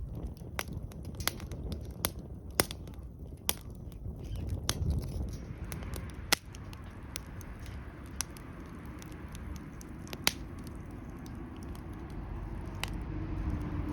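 Wood fire crackling and popping in a fire pit, with irregular sharp snaps over a low rumble. A low engine hum rises near the end.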